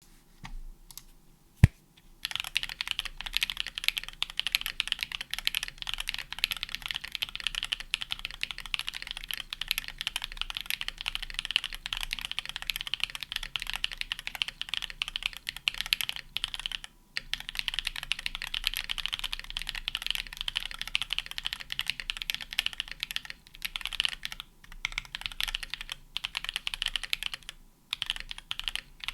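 Steady, fast typing on a Fjell custom mechanical keyboard with lubed Holy Panda tactile switches, a brass plate, foam dampening and PBT keycaps, with brief pauses now and then. A single sharp click comes just before the typing starts, about two seconds in.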